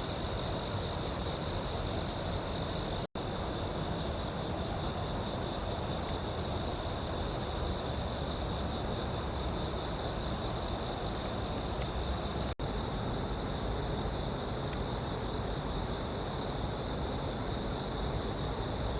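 A steady chorus of insects trilling at a high pitch over a continuous low rumble. The sound briefly cuts out twice.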